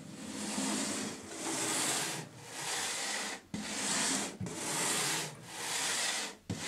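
Wooden planchette scraping across a Ouija board as it is pushed around in repeated strokes. There are about six rasping swells, roughly one a second, each broken off by a brief pause as the planchette changes direction.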